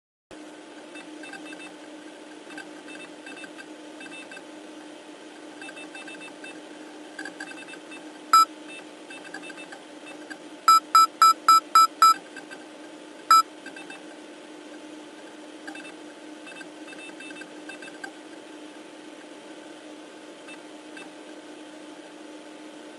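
Steady low electronic drone with faint flickering high tones, broken by loud, short electronic beeps: one, then a quick run of six at about four a second, then one more.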